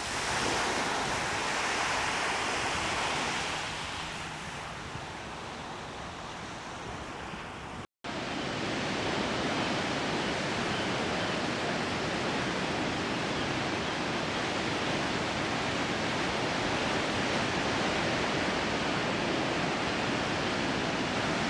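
Steady rushing outdoor noise of wind and water, brighter for the first few seconds, with a brief dropout about eight seconds in.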